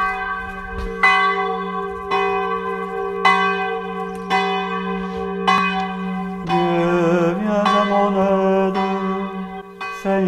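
Church bell tolling, one stroke about every second, each stroke ringing on over a steady hum. From a little past halfway a voice begins singing over the bells.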